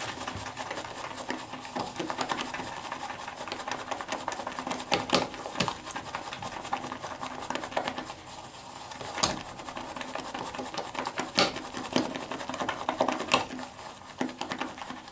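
Shaving brush whipping soap into lather in a 3D-printed PLA shaving bowl: a rapid, steady scratchy patter of bristles working the lather against the plastic, with a few louder clicks.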